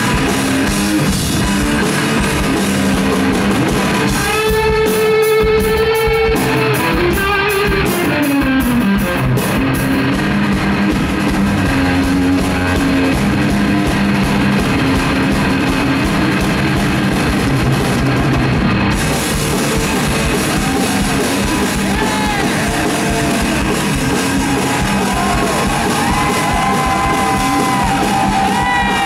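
Live garage-rock played by a two-piece band: overdriven electric guitar over a full drum kit, loud and steady. A long held note with bends rings out about four seconds in.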